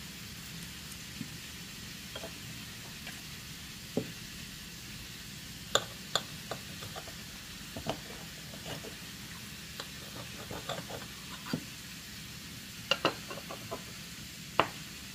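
Knife and fork clicking and scraping against a small cast-iron skillet while cutting into a stuffed bratwurst: irregular short taps, over a steady faint hiss.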